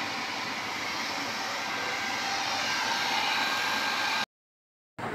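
Handheld hair dryer blowing steadily, a continuous rush of air. It cuts off suddenly a little after four seconds in.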